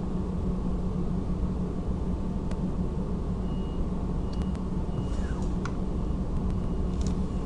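Steady low hum and hiss of background noise picked up by the microphone, with a few faint clicks in the second half.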